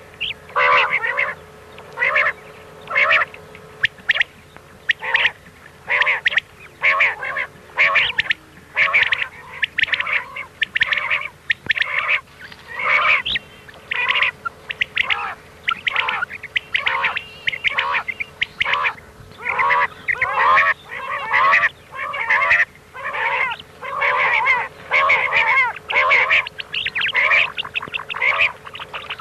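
Recorded common quail calls played as a hunting lure: short, nasal, pitched calls repeated in a quick, uneven series of about one to two a second, over a faint steady hum.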